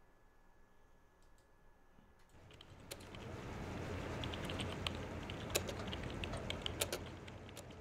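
Near silence, then from about two seconds in, a quick run of typing on a computer keyboard, many short clicks over a low background rumble.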